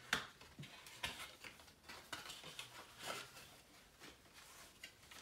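Hands opening and handling a paperboard perfume box: faint scattered scrapes, rubs and light clicks of the card and its flaps, with a sharper click just after the start.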